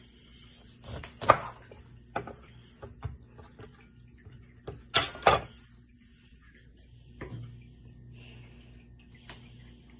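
Knife cutting a lemon: scattered light knocks and taps, the loudest about a second in and a close pair near the middle.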